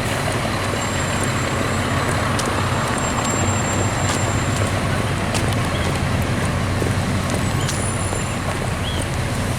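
Road traffic in a jam: car and truck engines running steadily, with a constant low engine hum.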